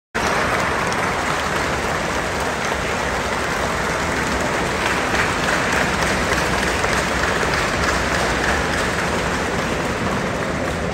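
Large crowd applauding: the dense, steady patter of many hands clapping. It cuts in suddenly at the start and keeps an even level throughout.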